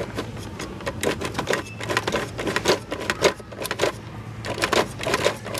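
Plastic clicking from the spin wheel of a Fisher-Price Little People toy school bus being turned by a finger, in runs of rapid clicks with short pauses between them.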